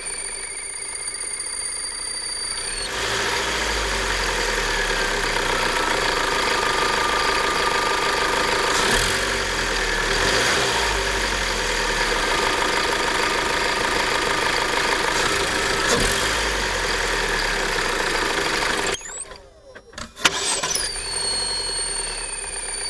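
Opel Astra H 1.8 XER four-cylinder petrol engine running, with a high thin whistle over it at the start and again near the end. The owner traced the whistle to a failing water pump, cured by fitting an original pump. Around two-thirds of the way through the sound drops out briefly.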